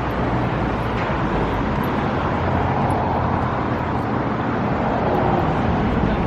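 Steady city street traffic noise, a continuous rumble and hiss of passing vehicles.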